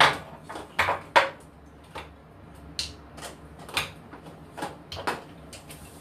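A mug and toiletry bottles knocking and clattering as they are picked up and set down on a bathroom sink counter while it is wiped with a cloth: about ten separate knocks, the loudest right at the start and around a second in.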